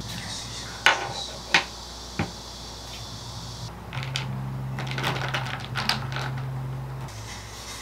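Ice cubes clinking against a tall glass as an iced latte is stirred with a straw: a few separate sharp knocks early on, then a quick run of clinks a few seconds in.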